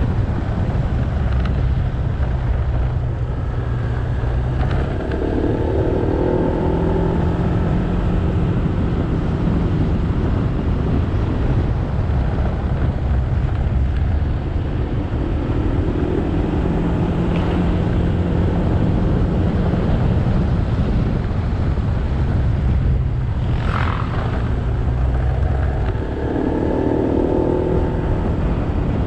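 Motorcycle engine running under way, mixed with wind and road noise. The engine note shifts up and down in pitch a few times.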